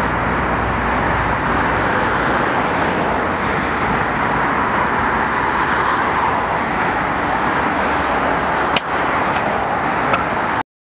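Steady, loud outdoor street noise, with a single sharp click about nine seconds in; it cuts off abruptly near the end.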